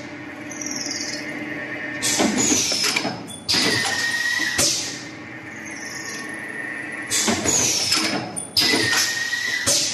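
Automatic metal sharpening machine running with a steady hum, broken by four loud grinding passes of about a second each, coming in two pairs, each with a high whine.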